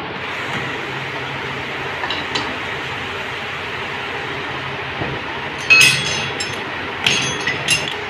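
Steel hand tools clinking against a motorcycle's magneto rotor as it is held and its nut tightened, over steady background noise; a few sharp metallic clinks come in the last three seconds.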